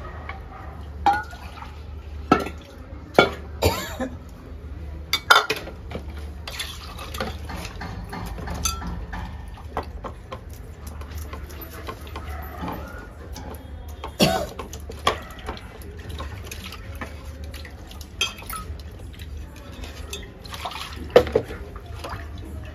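Water splashing in a steel bowl as a fish is washed and cleaned by hand, with sharp clinks and knocks against the bowl every few seconds, over a low steady hum.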